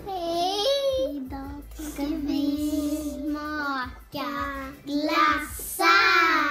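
Young girls singing together, holding long steady notes, with the loudest note near the end sliding down in pitch.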